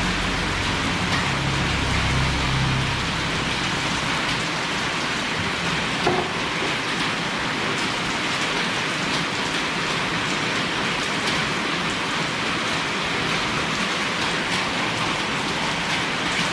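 A steady rain-like hiss, with a low rumble that fades out in the first few seconds and a single light knock about six seconds in.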